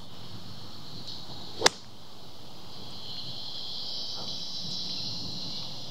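A golf club strikes a ball once, a single sharp crack about a second and a half in. Underneath runs a steady, high insect drone that grows a little louder about halfway through.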